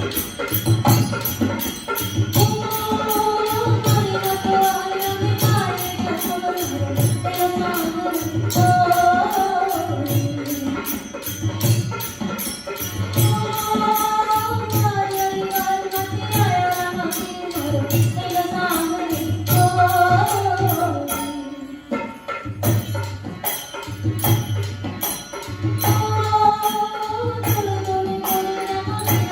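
Rajasthani folk music: a sung melody over a steady drum beat with jingling percussion, easing briefly about two thirds of the way through.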